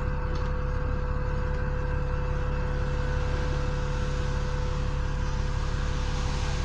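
Alexander Dennis Enviro400 double-decker bus idling at a standstill, heard inside the cabin: a steady low diesel rumble with a constant whine.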